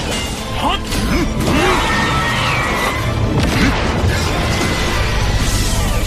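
Dramatic background music mixed with loud battle sound effects: repeated crashes and booms.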